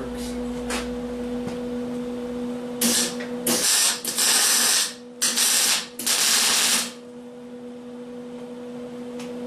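Welding: four short bursts of hissing crackle, each about a second long, between about three and seven seconds in, over a steady electrical hum.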